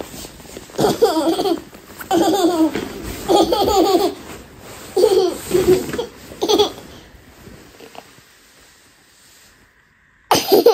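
Young child laughing in about five short, high-pitched bouts.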